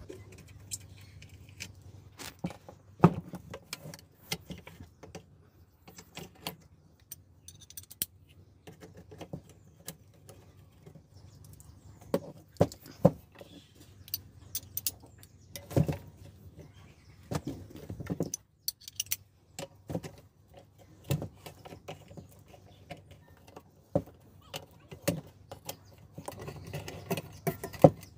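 Irregular metallic clicks and clinks of a socket wrench and tools working the body nuts of a 1 HP electric water pump as it is taken apart.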